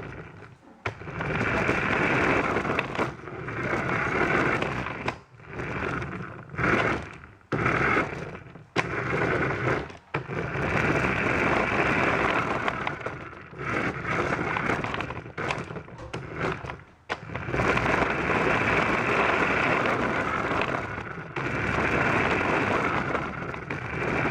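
Toy remote control car's small electric motor and gears running, with its wheels rolling over the floor, in bursts of a few seconds with short stops between as the throttle is worked. It is heard close up from the camera mounted on the car.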